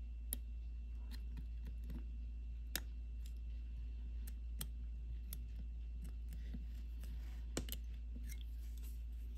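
Small metallic clicks and light scrapes of steel tweezer and pick tips working at the metal battery-retaining clip of a quartz watch movement, prying its tab up to free the button cell. Three louder clicks stand out over a steady low hum.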